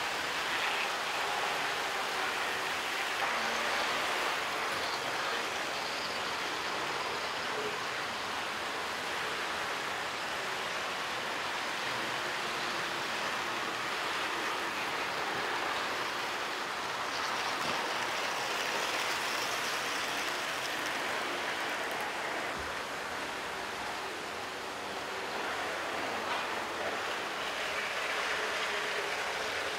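N-gauge model trains running on the layout's track: a steady, even noise of wheels rolling on rail and small motors.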